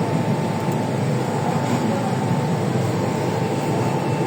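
Steady machinery noise from a CNC laser cutting machine, an even hum with a constant whine running through it and no change in level.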